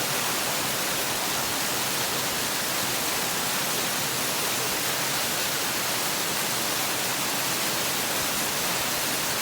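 Waterfall water rushing as a steady, even roar of noise, close to the microphone.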